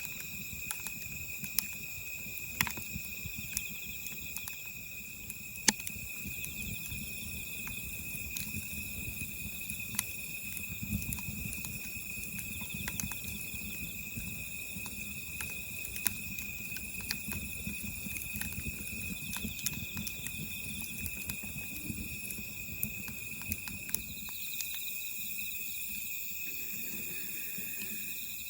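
Wood fire crackling, with scattered sharp pops and a low rumble under them, over a steady high-pitched whine.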